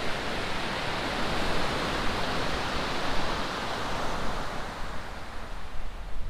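Surf on a shingle beach: a wave washing over the pebbles, its hiss swelling over a few seconds and then fading.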